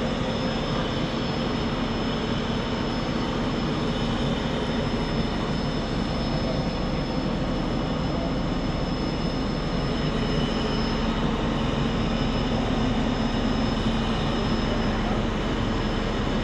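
A steady, unchanging mechanical drone with a faint high whine, like a large engine or machine running continuously.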